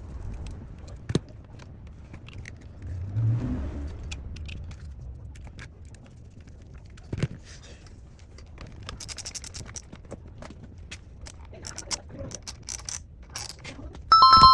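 Clicks, scrapes and light metallic rattles of small parts being handled, over a steady low hum. Near the end a loud electronic ring, like a telephone bell, starts.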